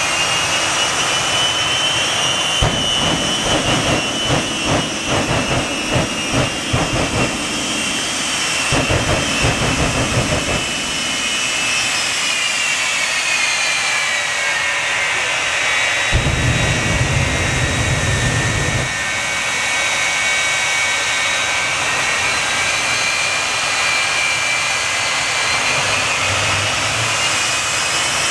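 Shockwave semi truck's triple jet engines running with a steady high turbine whine that sags in pitch midway and climbs again. Heavy low rumbles from the flame blasts out of its stacks come in a pulsing run over the first ten seconds and once more later on.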